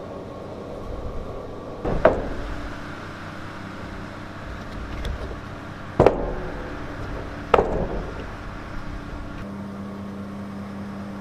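Three sharp, loud bangs, about two, six and seven and a half seconds in, each ringing briefly, over a steady low mechanical hum.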